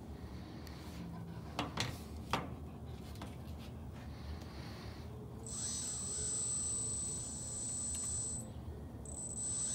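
Small electric motors of a 1:16 CAT RC model excavator whining high-pitched as the boom and bucket are worked. The whine starts about halfway through, stops briefly and comes back near the end; a few light clicks come earlier.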